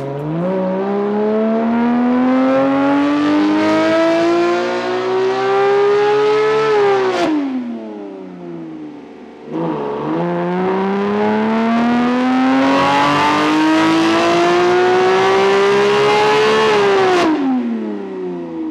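Porsche 991.2 GT3's naturally aspirated flat-six, through a JCR titanium exhaust, making two full-throttle dyno pulls. Each time the revs climb steadily in one gear for about seven seconds, then drop away quickly.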